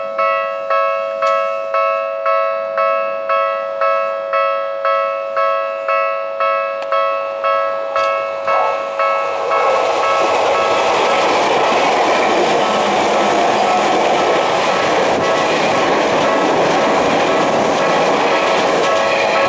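Japanese level-crossing warning bell ringing about twice a second. About nine and a half seconds in, a Tokyu 5050-series electric train passes over the crossing, and its loud steady running noise covers the bell, which keeps ringing underneath.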